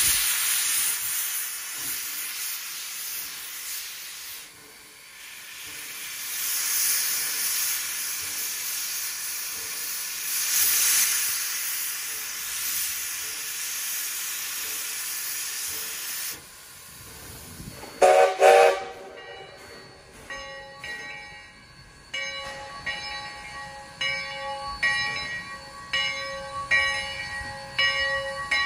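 Sierra Railway No. 3, a 4-6-0 steam locomotive, hissing loudly as steam blows from its open cylinder cocks, the hiss swelling and fading. About two-thirds of the way through its rebuilt steam whistle sounds briefly. After that the locomotive bell rings steadily, about one stroke a second.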